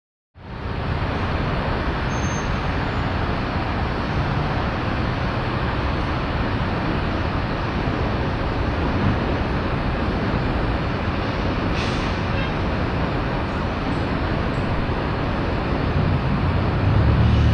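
Steady outdoor urban ambience: a continuous rumble and hiss of distant traffic and vehicles. It fades up within the first half-second, and a low rumble swells slightly near the end.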